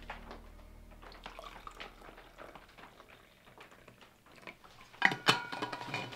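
Liquid poured from a steel vacuum flask into its stainless steel cup, with small clicks of handling the flask. About five seconds in come a couple of sharp metallic clanks with a short ring, as metal is set down on the table.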